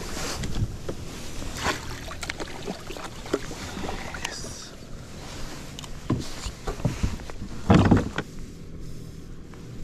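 Knocks and rustles of gear being handled on a plastic fishing kayak as a landing net holding a trout is lifted aboard. A louder thump comes nearly eight seconds in, as the net is set down in the kayak.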